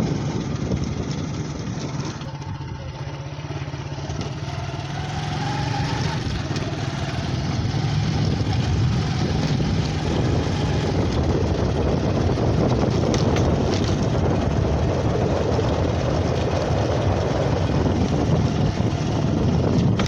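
Motorcycle engine running steadily while riding, with a constant low hum under road and wind noise. A short rising note comes about five seconds in.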